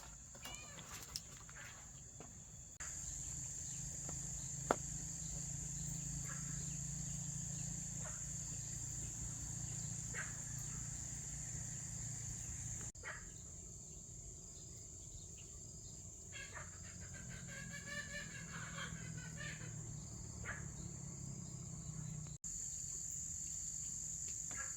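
Steady, high-pitched chirring of insects such as crickets or cicadas, with a few faint chirps and scattered light clicks, the sharpest about five seconds in. The drone breaks off and resumes abruptly a few times.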